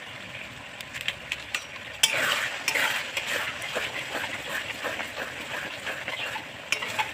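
A spatula stirring and scraping in a frying pan while onion, ginger-garlic paste and freshly added ground turmeric and chilli fry in oil with a sizzle. The stirring is light at first and grows busier and louder about two seconds in, with repeated clicks of the spatula against the pan.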